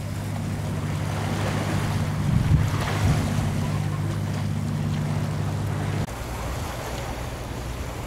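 Surf washing against rocks, with wind on the microphone, over a steady low hum like a motor's that shifts abruptly about six seconds in.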